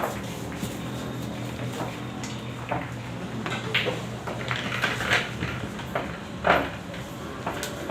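A string of short, sharp clacks of hard objects knocking together over a steady low hum, the loudest about six and a half seconds in.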